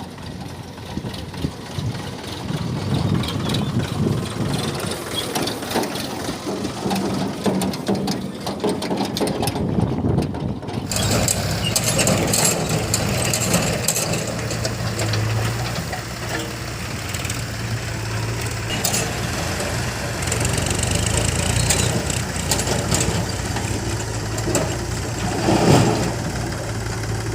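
Heavy diesel machinery running, the engine sound of a backhoe loader and tractor at work, with a few sharp knocks. The sound changes abruptly about eleven seconds in, after which a steady low engine note runs underneath.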